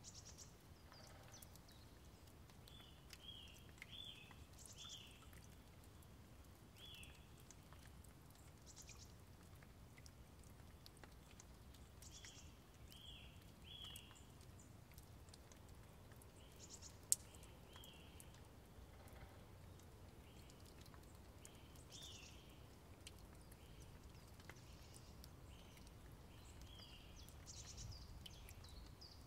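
Faint outdoor ambience: small birds chirping in short groups of two to four quick notes, over a low steady rumble. One sharp click a little past halfway.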